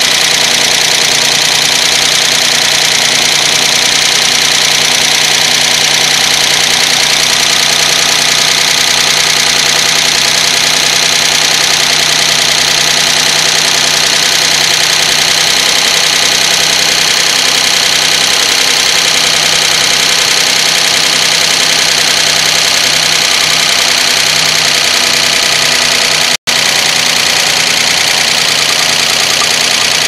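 Nissan VG33E V6 idling with its right-side valve cover off, so the exposed rocker arms and hydraulic lifters are heard directly as a loud, steady mechanical clatter. The engine runs as oil works up to the right-bank rockers and lifters. The sound drops out for an instant about 26 seconds in.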